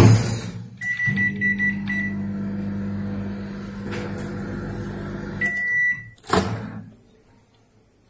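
LG microwave oven being started: a door thud, a run of short keypad beeps, then the oven running with a steady electrical hum. About six seconds in a longer beep sounds, the hum stops and a clunk follows as the door opens.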